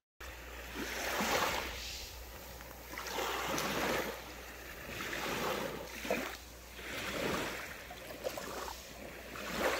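Small waves washing onto a sandy shore, each wash swelling and fading every two seconds or so, over a steady low rumble.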